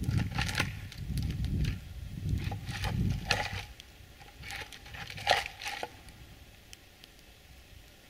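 Dry branches cracking and snapping, about eight sharp cracks in the first six seconds, the loudest a little after five seconds. A low rumble runs under them and fades out at about three and a half seconds.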